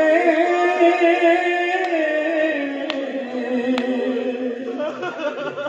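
A man singing a noha, an Urdu lament, unaccompanied. He draws out one long held note that slides down to a lower held note about halfway through.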